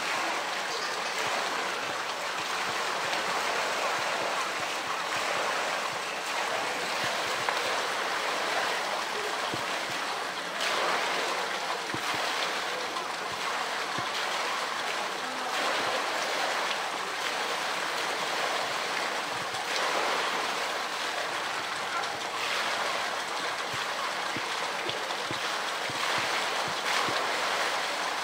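Steady splashing and lapping of pool water, stirred by a polar bear swimming and pushing a blue plastic tank around in it.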